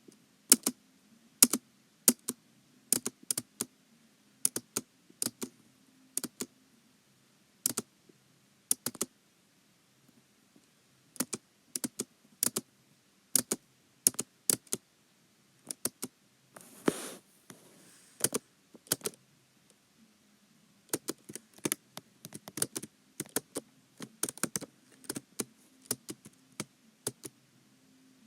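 Computer keyboard keys pressed one or a few at a time, sharp separate clicks in irregular clusters with short pauses between. About sixteen seconds in, a longer noisy sound lasts about a second and a half.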